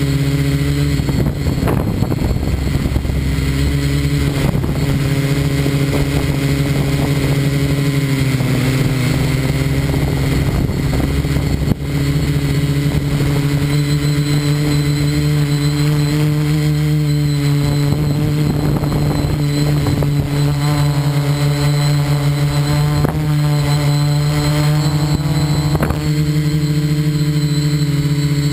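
Motor of a radio-controlled FPV model running continuously as it moves across the field, heard from the onboard camera: a steady hum that shifts slightly in pitch now and then.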